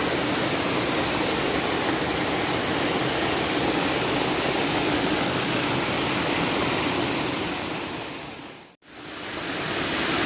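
Steady rushing of a monsoon-swollen mountain stream in flood, muddy water pouring over a road crossing. The sound fades out to nothing and back in about nine seconds in.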